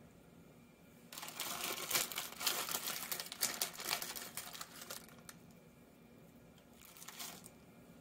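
Clear plastic pepperoni pack crinkling as it is handled, for about four seconds starting about a second in, with a brief rustle again near the end.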